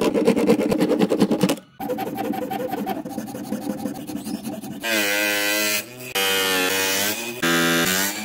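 PVC plastic being worked by hand: quick, even back-and-forth rubbing of the plate on sandpaper, then lighter rhythmic filing strokes in its hexagonal hole. Over the last three seconds come three separate stretches of a steady buzzing pitched sound, each about a second long.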